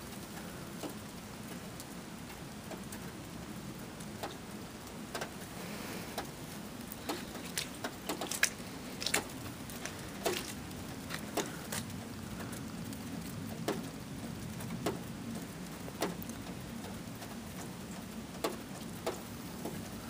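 Heavy snowfall of very large flakes, about half-dollar size, landing with scattered sharp ticks over a steady low background noise. The ticks come irregularly and grow more frequent about a third of the way in.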